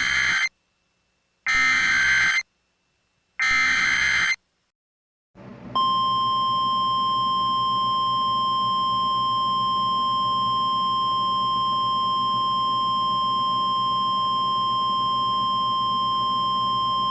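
Emergency Alert System tones: the last of three short, screeching SAME header data bursts, each about a second long with a second of silence between, then about five seconds in a steady 1050 Hz NOAA Weather Radio alert tone begins over a hiss of static and holds. The tones mark the start of a weather alert, here a Severe Thunderstorm Watch.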